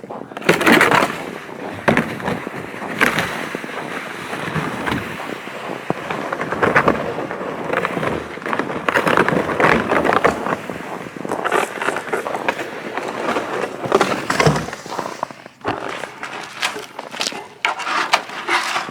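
Footsteps crunching through frozen snow, an irregular run of crunches and scuffs while walking.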